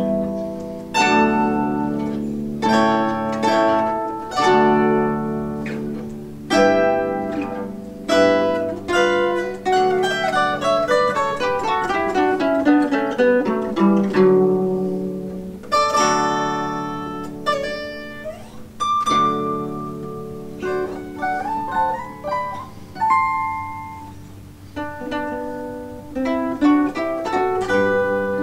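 Two zithers playing a duet: a plucked melody over chords, each note ringing and dying away, with a long falling run of notes about midway.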